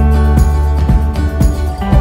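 Background music with a heavy bass and a steady beat, about two beats a second.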